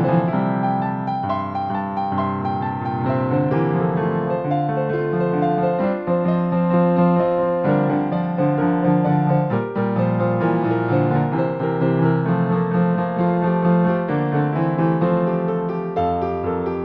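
Background music played on piano, a continuous run of notes.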